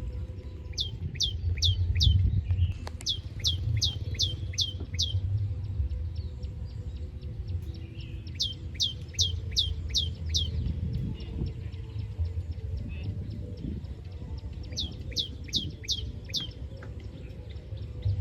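Bird calls: four runs of about four to six quick, sharp notes that each slide steeply downward, about four notes a second, over a steady low rumble.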